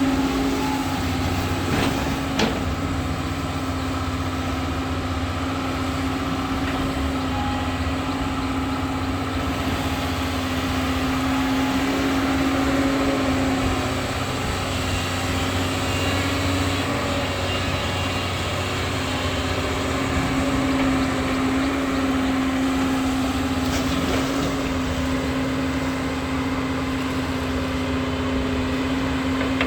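Doosan long-arm excavator's diesel engine and hydraulics running steadily with a constant droning hum, and a couple of sharp knocks about two seconds in.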